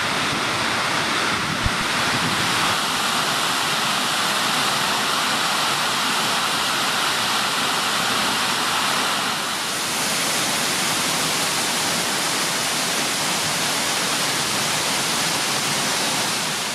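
The Salt del Sallent, a tall waterfall, pouring onto rock: a steady, dense rush of falling water. The tone shifts slightly about halfway through, and there is one small knock about two seconds in.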